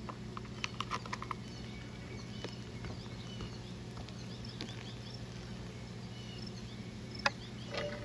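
Quiet outdoor ambience: a steady low hum with scattered faint high chirps. A few light plastic clicks in the first second or so come from handling the handheld pool vacuum's clear debris cup, and there is one sharp click near the end.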